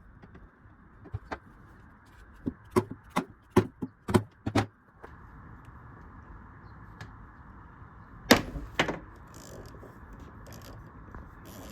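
Sharp taps on a stuck petcock fitting of a dirt bike's plastic fuel tank, struck to break it loose: a quick run of about nine taps, then two louder ones a few seconds later.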